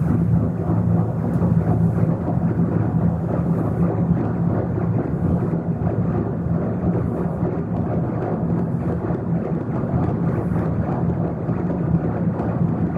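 Live experimental electronic music: a dense, steady noise drone over a low sustained hum, with no beat or melody.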